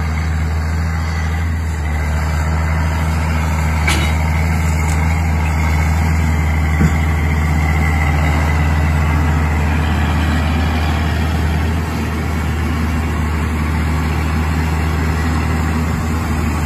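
John Deere 7810 tractor's 8.1-litre six-cylinder diesel engine running steadily under load while pulling seeding equipment past, with a deep, even engine hum.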